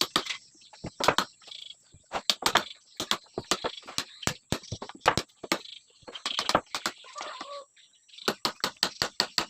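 Hammering on a wooden window frame during assembly: sharp knocks at an irregular pace, with a quick run of strikes near the end.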